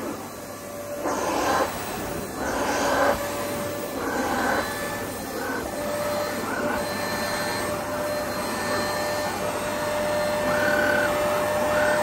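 Electrolux Workzone Z61A handheld vacuum running with a steady motor whine and the hiss of sawdust being drawn in as it is pushed over carpet, swelling louder a few times in the first half. Its filter-only design is clogging and it is losing suction.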